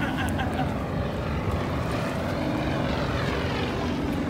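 Propeller aircraft making a low flyover, its engine note rising and then falling in pitch as it passes overhead about three seconds in, over a low steady rumble.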